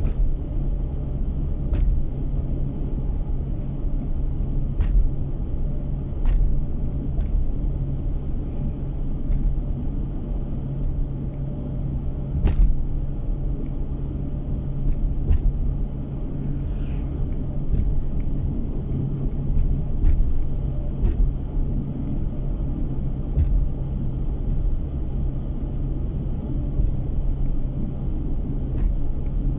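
Car driving at steady speed, heard from inside the cabin: a continuous low rumble of engine and tyres on the road, with scattered light clicks now and then.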